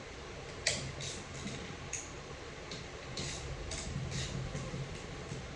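Light, sharp clicks and ticks of hand tools and metal parts being handled on an automatic transmission during teardown, coming irregularly about two a second.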